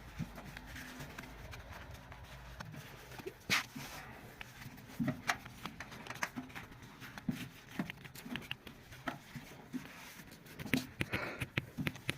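Scattered light clicks and knocks at an irregular pace, the loudest about three and a half seconds in and again near the end.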